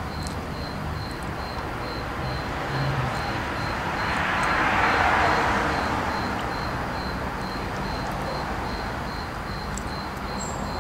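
Outdoor ambience: steady background noise that swells and fades over about two seconds near the middle, with a faint high chirp pulsing about three times a second.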